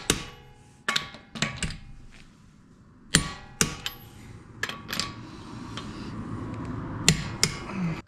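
Socket wrench clinking and knocking on the wheel's lug nuts as they are threaded back on and tightened: a string of sharp, irregular metal clicks and knocks.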